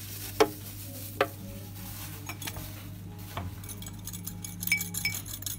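Banana chunks dropped into a plastic blender jar, giving two sharp knocks about half a second and a second in, followed by a few softer ones. Near the end comes a run of light clicking and clinking of kitchen utensils, over a steady low hum.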